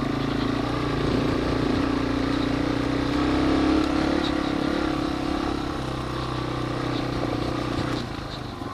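Yamaha TW200's single-cylinder four-stroke engine running steadily while the bike is ridden along a dirt trail. Its pitch rises a little a few seconds in, then eases off and drops near the end.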